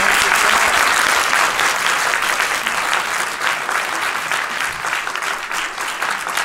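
Audience applauding: many hands clapping in a dense, steady patter that gradually eases off.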